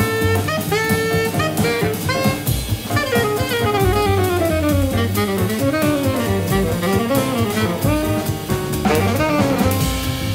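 Big-band jazz played live: a tenor saxophone solos over drum kit and rhythm section. It holds a few notes, then from about a third of the way in plays fast runs that slide down and climb back up.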